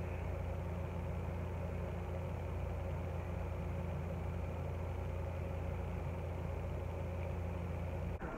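Steady low machine hum with a few constant tones, unchanging until it breaks off abruptly just before the end.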